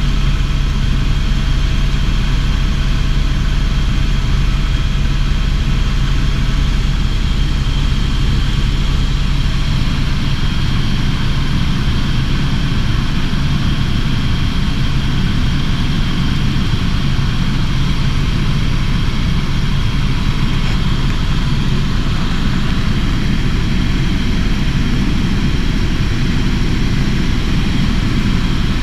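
Helicopter turbine and rotor running steadily at cruise, heard from inside the cabin as a loud, unbroken drone with a high whine over it; the deepest hum eases about ten seconds in.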